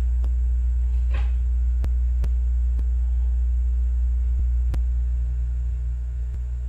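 Steady, loud low electrical hum, with a few faint clicks scattered through it.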